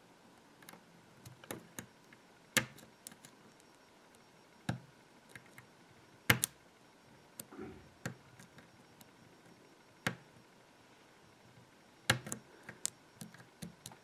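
Irregular small metal clicks and taps from lock-picking tools working the pins of a Kensington tubular laptop lock, a few sharper clicks scattered among fainter ones.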